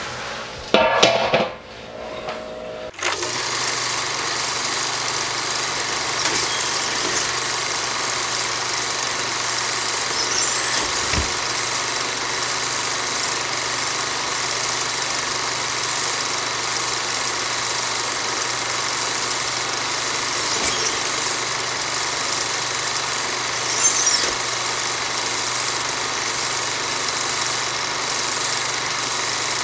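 Brewing pump running steadily, recirculating wort through the mash: a constant hum under the hiss of wort splashing onto the grain bed. A few brief louder knocks and clatter come in the first three seconds before the steady sound settles.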